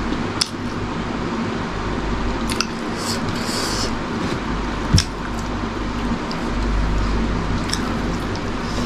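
Eating by hand: fingers picking through food on a plastic tray and mouth sounds of chewing, with scattered small clicks, the sharpest about five seconds in. A steady background noise runs underneath.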